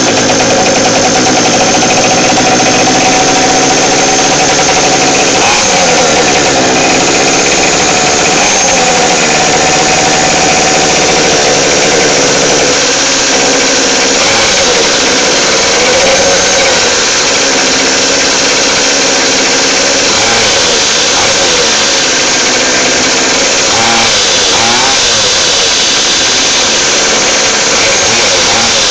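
Pocket bike's small two-stroke engine running, its freshly repaired clutch working again, revved up and down several times between steadier running.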